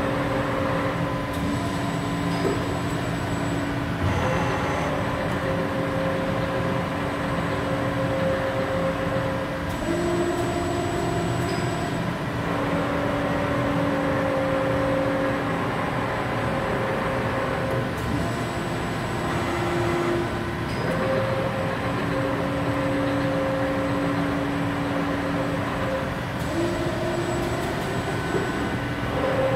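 CNC heavy-duty lathe running: a steady two-note electric whine from its drives that steps up in pitch for a second or two several times and drops back, with a few short knocks along the way.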